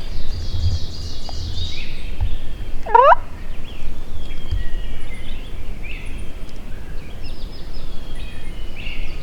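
Wild turkey gobbler gobbling near the start, amid songbirds singing, with a single sweeping call about three seconds in.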